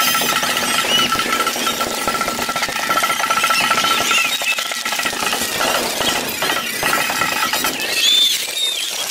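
Parade street sound played back at four times speed: horses' hooves on pavement sped up into a rapid, jackhammer-like clatter, with short squeaky high-pitched glides of sped-up voices over it, the loudest about eight seconds in.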